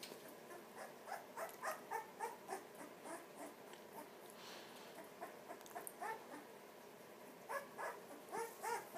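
Young pit bull puppy whimpering: short, high, bending cries in three bunches, a few a second.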